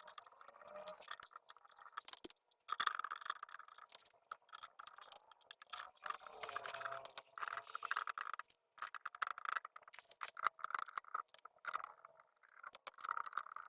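Small steel bolts and hand tools clicking and rattling as the transmission oil pan bolts are fitted. The clicks are irregular, with short runs of quick ticking.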